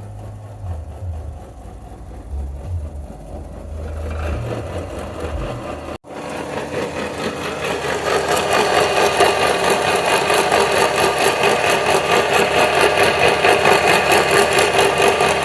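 Honda Fit engine idling with a low hum, then, after a break about six seconds in, a louder, rapidly pulsing mechanical grinding: the grinding noise the car is being inspected for.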